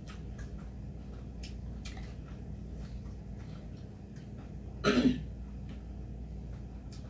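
Soft clicks and small eating sounds from chopsticks and bowls, then a single short, loud cough about five seconds in.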